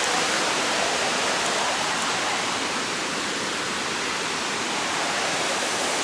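Steady rush of falling water from the Iguazu Falls, an even hiss with no breaks.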